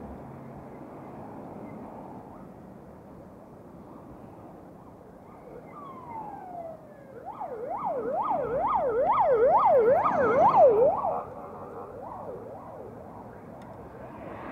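Siren: a single falling wail a little past the middle, then a fast yelp sweeping up and down about twice a second for some four seconds, growing louder before it cuts off suddenly. A steady background noise runs underneath.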